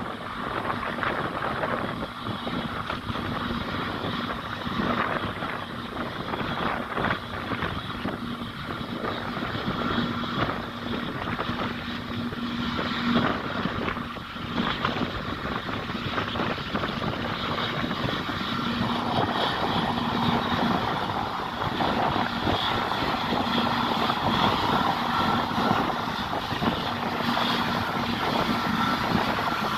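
Airliner engines during the airplane's arrival: a steady engine rumble and whine that grows louder in the second half as the aircraft comes nearer.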